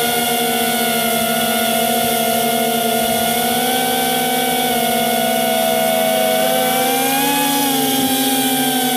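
FPV quadcopter's electric motors and propellers whining steadily, heard from the drone's own camera. The pitch rises a little about seven seconds in, then settles.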